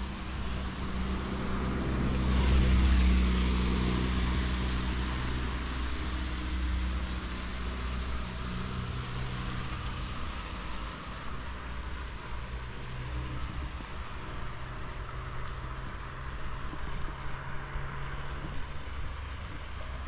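Road traffic: a motor vehicle passes, its hiss swelling to a peak about three seconds in and fading, over a steady low engine hum.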